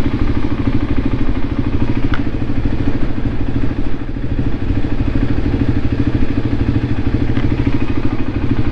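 Voge 300 Rally's single-cylinder engine idling steadily, with a faint click about two seconds in.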